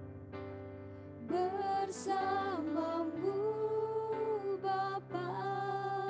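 Women singing a slow worship song into microphones over sustained instrumental chords. The voices come in about a second in and hold long notes with vibrato.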